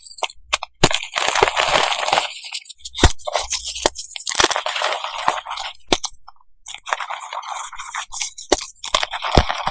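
Pieces of coloured reformed gym chalk being crushed and crumbled in quick succession: dense crunching and crackling broken by many sharp snaps.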